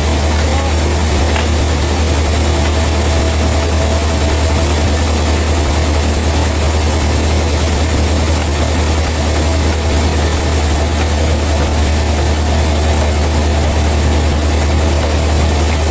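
A heavy engine running steadily at an even speed, a deep, constant drone.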